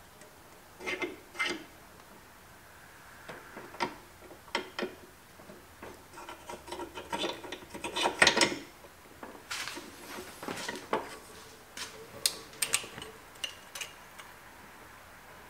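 Bench vise being worked by its handle to compress and reset a motorcycle cam chain tensioner: scattered metal clicks and knocks, with a stretch of rubbing and scraping in the middle, loudest about eight seconds in.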